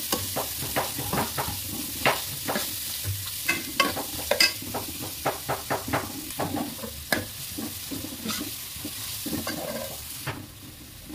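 Sliced onions sizzling as they fry in oil and ghee in a kadai, stirred with a steel ladle that clacks and scrapes against the pan again and again. The onions are being fried until they start to change colour. The sizzle drops away near the end.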